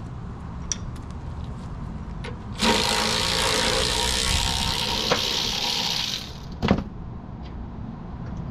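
Aerosol can of brake cleaner sprayed in one steady burst of about three and a half seconds, a loud hiss, starting a few seconds in. A sharp knock follows shortly after.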